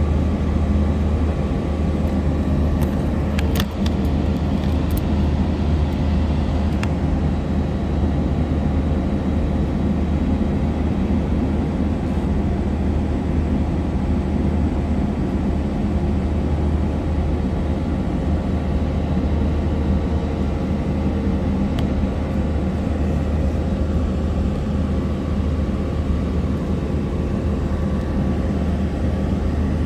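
Airliner cabin noise heard from a window seat: a steady low drone and hum of the aircraft's engines and air systems, with a few light clicks about three to four seconds in.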